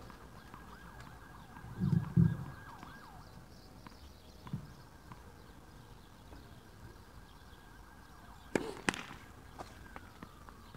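Tennis ball bounced twice on the court about two seconds in, then two sharp knocks of ball and racket close together near the end. A faint warbling tone, like a distant siren, sounds under the bounces.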